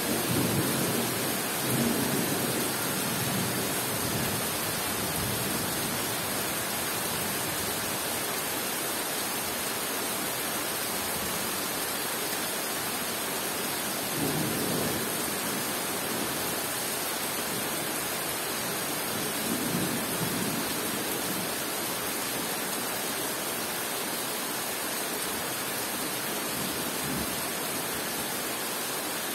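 Steady heavy rain falling on forest foliage, with low rolls of thunder near the start, about halfway through and again about two-thirds in.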